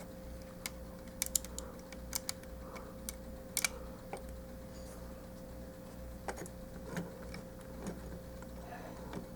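Irregular sharp plastic clicks and taps from a transforming action figure being handled and its parts moved, clustered in the first four seconds with a few more later, over a steady faint hum.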